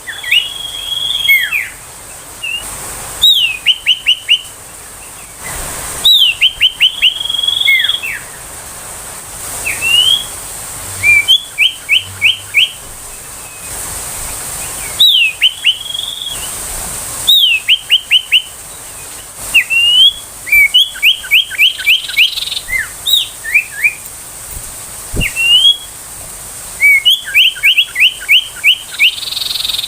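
Common iora singing: phrases repeated every two to three seconds, each a high note sliding downward followed by a quick run of short, sharp, evenly spaced notes.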